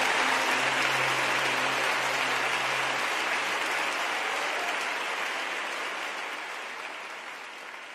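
Audience applauding, with a held low note from the band dying out about three seconds in; the applause fades away toward the end.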